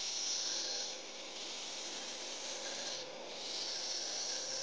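Belt grinder sanding a wooden block held flat on its table against the running belt: a steady hiss of abrasive on wood over the faint hum of the motor. It drops away briefly about three seconds in, then comes back louder.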